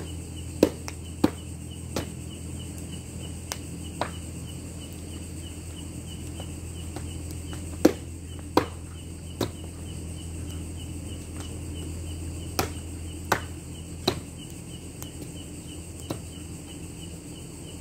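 Sharp chopping knocks, about a dozen at irregular intervals, from chicken being cut up on the ground, over a steady chirping of crickets and a low hum.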